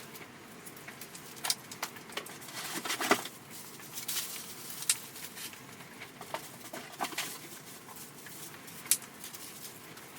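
Sped-up sounds of engine parts and boxes being handled: irregular quick clicks, taps and rustles, with sharper clicks about 3 and 9 seconds in.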